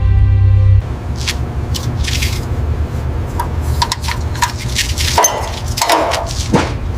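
Background music that cuts off about a second in, followed by a low steady hum with scattered short clicks and scrapes.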